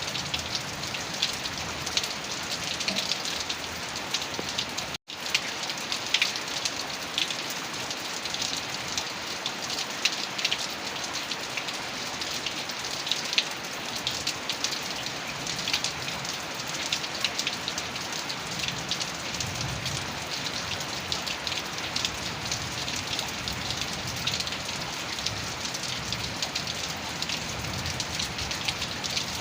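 Heavy rain falling steadily, with many individual drops ticking through the even hiss. The sound cuts out for an instant about five seconds in.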